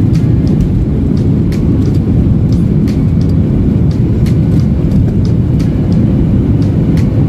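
Cabin noise of a Boeing 737 rolling fast on the runway, heard from a window seat: a loud, steady jet-engine rumble with faint light ticks about twice a second.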